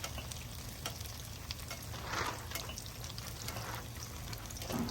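Bread rolls deep-frying in hot oil: a steady sizzle with scattered crackles and pops, swelling briefly louder about two seconds in.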